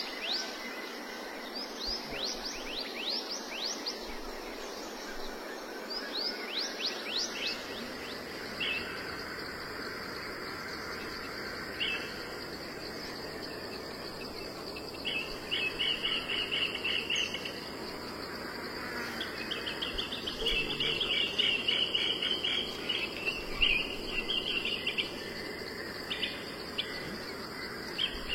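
Outdoor nature sounds: insects droning steadily with bird calls over them. Quick runs of falling whistled notes come in the first seven seconds, then buzzy trills from about halfway through.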